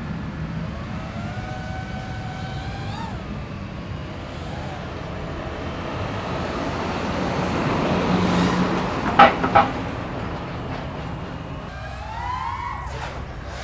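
DJI FPV drone's motors and propellers whining, the pitch gliding up and down with the throttle, over steady road traffic. Two short, loud beeps close together about nine seconds in.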